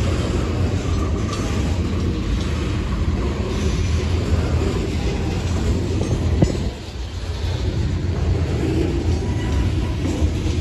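Freight train rolling past: a steady rumble of wheels on the rails, with one sharp clack about six and a half seconds in.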